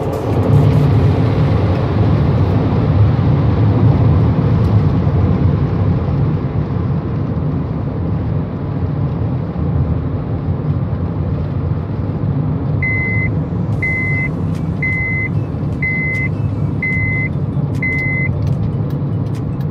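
Engine and road noise inside the cabin of a 2010 Honda Odyssey minivan as it slows down, on a test of freshly installed front brake pads. Near the end come six short beeps from the turn signal, about one a second.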